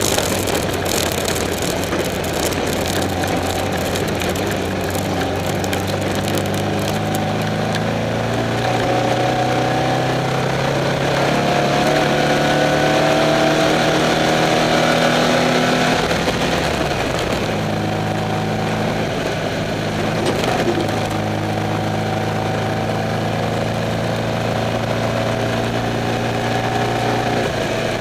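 Off-road race car's engine running steadily, heard from the cockpit over a hiss of wind and driving noise. Its pitch climbs slowly for several seconds in the middle, drops back, then holds steady.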